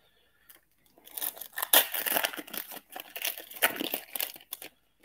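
Foil trading-card pack wrapper being torn open and crinkled by hand, a dense crackling rustle that starts about a second in and stops just before the end.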